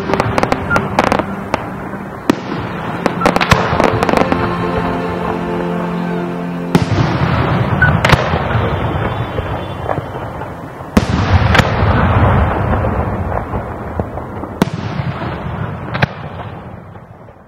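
Aerial fireworks shells bursting, a sharp bang every second or two followed by crackling stars, over sustained background music. The sound fades away near the end.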